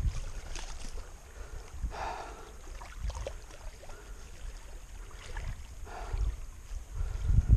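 Outdoor wind rumbling unevenly on the microphone in gusts, with brief faint voice sounds about two seconds in and again near six seconds.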